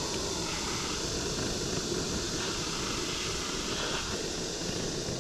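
Freshly lit wood fire for grilling, burning with a steady hiss and crackle that starts and stops abruptly.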